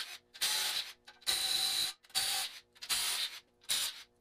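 Cordless DeWalt impact gun run in about five short bursts, each about half a second with a high whine, on a connecting-rod cap bolt of an aluminium 5.3 L LS V8 block. It is a used gun that works only some of the time.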